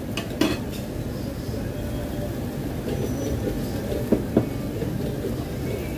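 Steady low rumble of restaurant background noise around a tabletop grill. Chopsticks click lightly against a plate about half a second in and twice around four seconds in.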